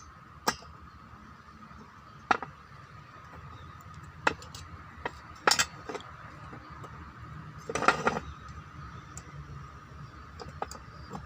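Small metal parts and hand tools clinking and knocking at irregular intervals during work on a brush cutter engine, with a short cluster of clatter about eight seconds in, over a faint steady high hum.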